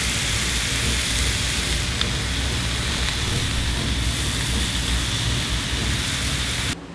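Garlic steak and vegetables sizzling on a hot cast-iron sizzle platter: a steady, loud hiss that cuts off suddenly near the end.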